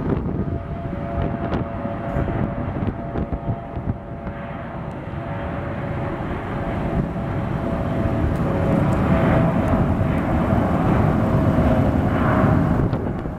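Mitsubishi CRJ900 regional jet's twin rear-mounted turbofans on the takeoff roll: a steady jet rumble with a held mid-pitched whine, growing louder through the second half.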